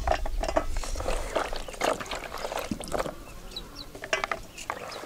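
Wet carrots and green beans being set down by hand into an enamel bowl: a string of short knocks and wet rustles.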